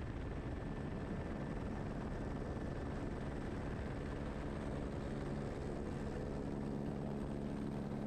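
Airbus H125 (AS350 B3) helicopter in flight, slowly bringing a sling load in to the drop point: steady rotor and turbine noise with an even low hum.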